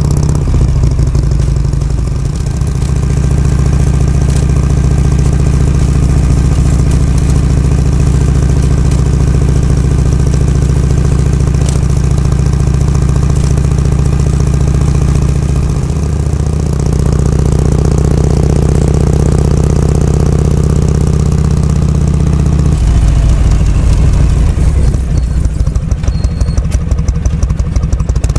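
Harley-Davidson Shovelhead FLH's air-cooled 45-degree V-twin engine running steadily while riding; its note shifts a couple of times, and near the end it turns to an uneven pulsing beat.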